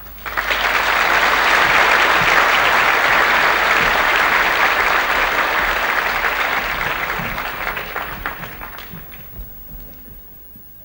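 Audience applauding at the end of a spoken stage prologue: the clapping breaks out suddenly, holds strong for several seconds, then dies away gradually.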